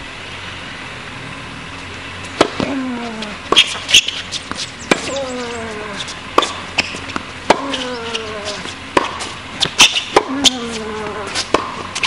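Tennis rally on a hard court: sharp pops of racket strings striking the ball and the ball bouncing, roughly once a second from about two seconds in. Several short grunts falling in pitch come with the shots.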